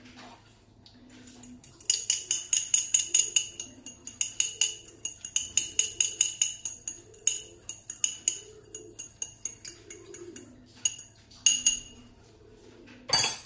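Egg yolk and lemon juice being beaten in a small glass bowl: quick ringing clinks of a utensil against the glass, about five a second, with short pauses, stopping about eleven seconds in. A louder knock follows near the end.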